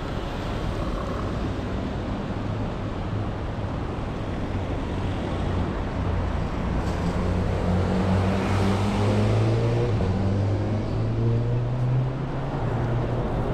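Road traffic on a city street. A vehicle engine's hum climbs steadily in pitch as it accelerates past, then falls away near the end.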